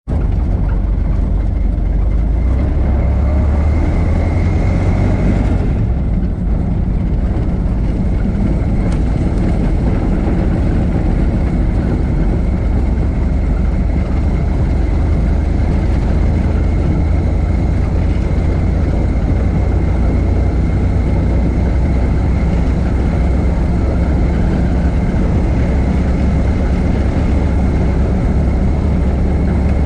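1926 Ford Model T's four-cylinder engine running as the car is driven: a steady, loud, low drone with a thin high tone running through it.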